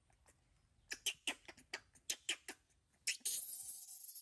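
A run of short, sharp squeaks, about eight in a second and a half. About three seconds in, a baby macaque breaks into a long, harsh, high-pitched scream.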